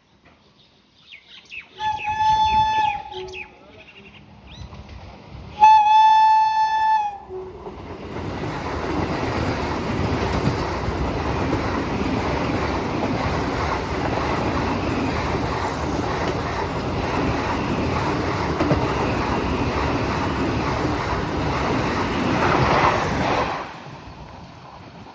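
An Indian Railways train sounds its horn in two blasts of about a second and a half each, then runs past at speed for about fifteen seconds. The passing noise cuts off sharply near the end.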